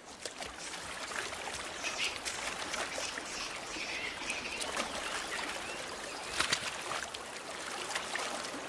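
Hot spring water trickling and splashing over rocks, a steady flowing wash with many small drips and splashes.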